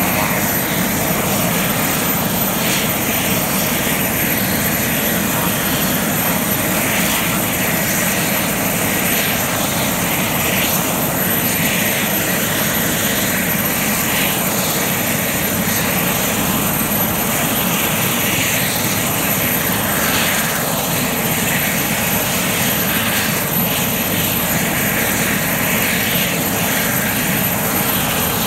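Sikorsky S-61-type heavy-lift helicopter running on the ground with its rotors turning: a loud, steady mix of turbine engine noise and rotor-blade whoosh that does not change.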